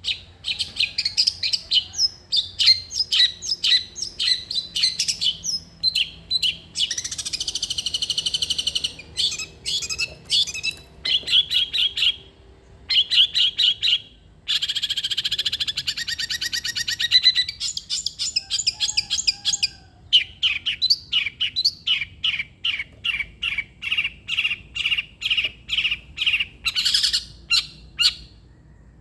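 Long-tailed shrike (cendet) singing vigorously: long runs of sharp, rapidly repeated chirps, broken twice by a long, fast rolling trill, once about a quarter of the way in and again around the middle.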